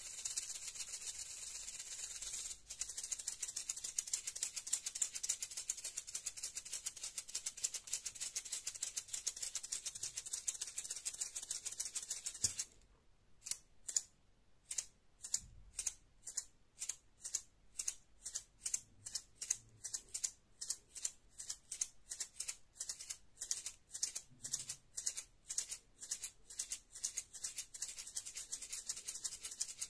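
Maracas shaken in a fast, continuous rattle for the first twelve seconds or so. After a short pause they are shaken in separate strokes, about two a second, which come closer together near the end.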